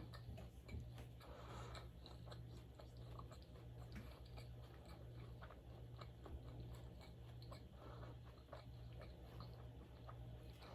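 Faint close-up chewing of a mouthful of sushi, with soft scattered wet clicks, over a steady low hum.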